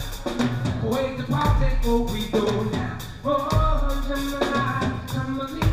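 Live band playing: a drum kit keeping a beat under held horn notes from trombone and saxophone.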